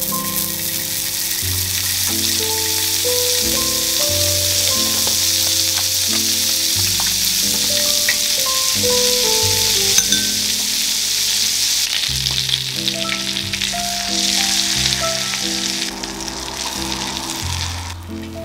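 Butter sizzling steadily on a cast-iron griddle over a gas flame, with pieces of corn frying in the hot butter near the end. Light background music plays underneath.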